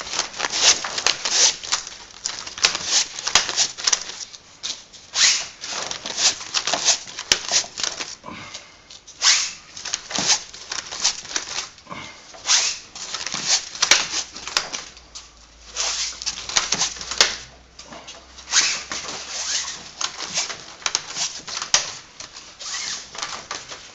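Fabric vertical-blind vanes being hooked one after another onto the plastic carrier hooks of the blind's headrail: a long run of irregular clicks and rattles, with some rustle of the vane fabric.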